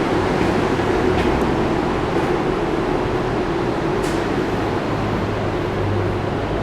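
Steady mechanical hum with a low drone underneath, with a faint click about four seconds in.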